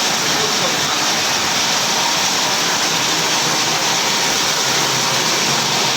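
Paper dona making machine running: a loud, steady rushing noise with no distinct strokes.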